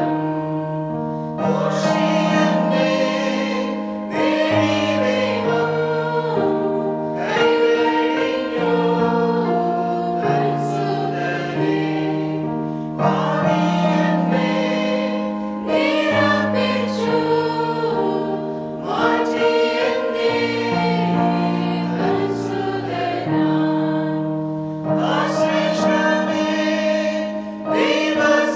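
Mixed choir of children and adults singing a Malayalam Christian song together, in phrases of a few seconds with held notes.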